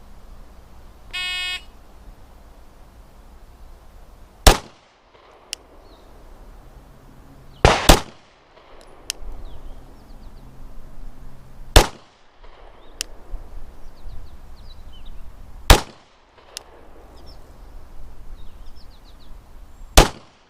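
Five 9mm shots from a Glock 19 pistol, fired slowly about four seconds apart in a slow-fire string. A shot timer's start beep sounds about a second in.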